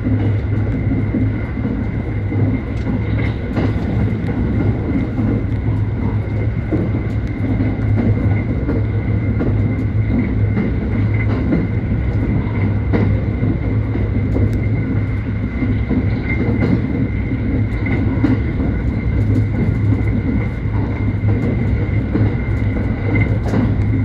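Limited express electric train running at speed, heard inside the passenger cabin: a steady low rumble with a thin, steady high tone over it and scattered clicks from the wheels on the rails.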